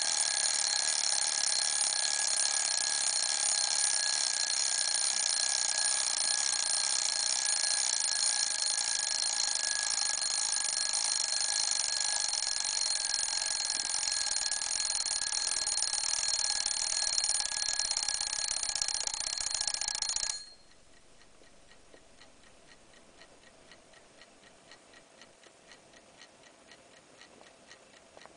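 Aradora wind-up mechanical alarm clock ringing its bell continuously, a loud steady metallic ringing that stops abruptly about twenty seconds in. After that the clock's movement is heard ticking faintly and steadily.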